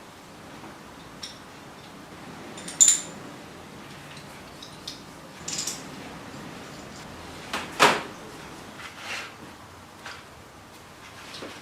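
Small metal parts being handled on a workbench: a handful of scattered clinks and knocks. There is a bright ringing clink about three seconds in and the loudest knock about eight seconds in.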